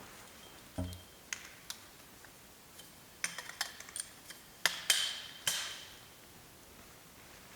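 Light clinks, knocks and clatter of hard objects being handled, some with a brief metallic ring. A dull thump comes about a second in, and the loudest clatter is around five seconds in.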